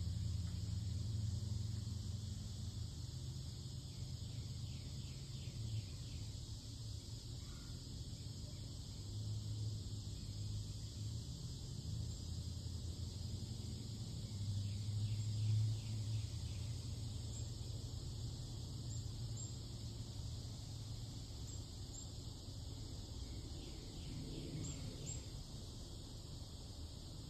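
Outdoor summer ambience: continuous high insect buzzing with short bird chirps and trills, over a steady low rumble that swells a few times.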